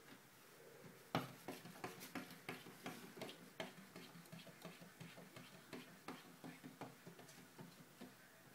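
A tuxedo cat's front paws tapping and batting against a glass window pane: a quick, irregular run of light taps, about three a second, starting with the loudest about a second in and going on until near the end.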